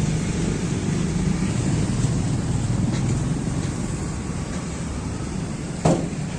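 Steady low rumble of motor vehicle engines in street traffic, with one sharp knock near the end.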